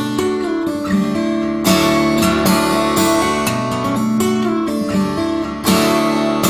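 Background music: a strummed acoustic guitar playing a chord progression, the chords changing every second or two.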